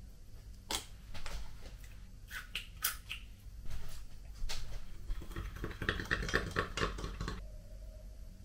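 Supplement containers being handled: a series of sharp clicks and knocks from tubs and lids, then about two seconds of fast rattling ticks.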